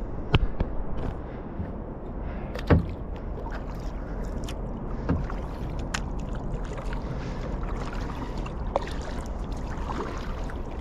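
Kayak paddle strokes: the double-bladed paddle dipping and pulling through calm water, with drips, small splashes and scattered light clicks. A sharp click comes a little under three seconds in.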